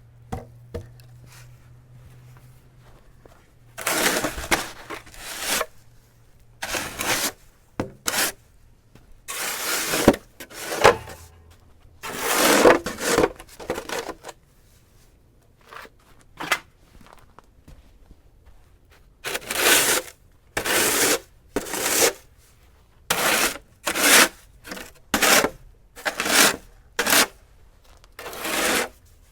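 Plastic snow shovel scraping snow off pavement in repeated strokes, each a harsh scrape of about a second with short pauses between; the strokes come quicker and shorter in the second half.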